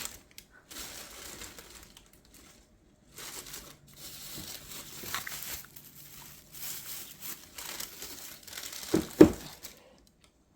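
Crinkling and rustling of handled material in several stretches with short pauses between them, with two sharp thumps about nine seconds in.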